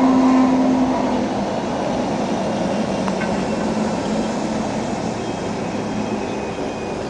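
Electric tram running past on street-level rails: a steady hum stops about a second in, and the rolling noise then fades as the tram moves away.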